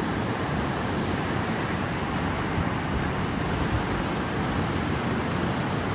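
Steady rush of a large waterfall, Blackwater Falls pouring over its ledge, an even roar of falling water with no change in strength.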